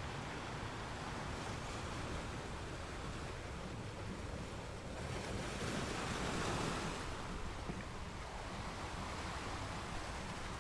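Gentle ocean waves washing onto a sand beach, a steady surf hiss that swells as one wave breaks and rushes in about midway, then eases back.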